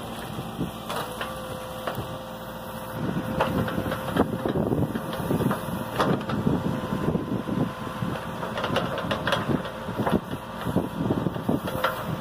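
Caterpillar backhoe loader's diesel engine running and working as the backhoe bucket digs into the ground, getting louder about three seconds in. Many short knocks and cracks sound over the engine.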